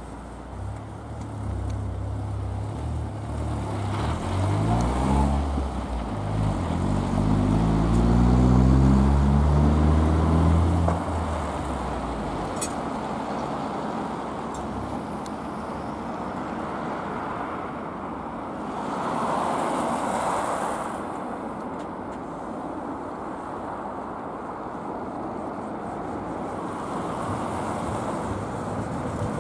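Road traffic. A motor vehicle's engine climbs in pitch twice and grows loud, then falls away after about ten seconds. A steady traffic rumble follows, with another vehicle passing about two-thirds of the way through.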